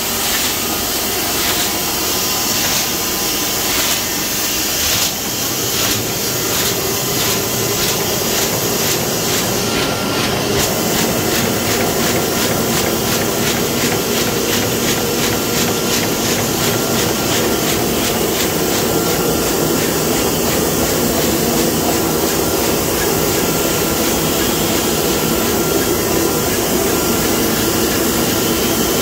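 Komori Lithrone L-426 four-colour sheetfed offset press running at speed: a steady loud mechanical clatter and hum from the feeder, gripper chains and cylinders, with a fast even ticking of the sheet cycle.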